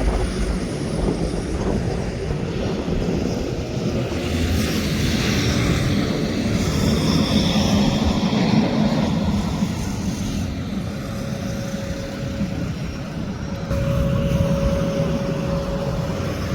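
A vehicle engine running steadily, with a rushing noise over it; a faint steady tone comes in about two-thirds of the way through.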